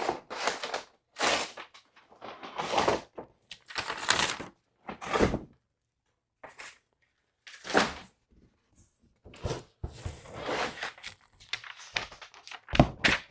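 Cardboard and paper packaging being unpacked by hand: irregular rustling and scraping, with dull thunks as pieces are lifted out of a large box and set down, and a couple of sharp knocks near the end.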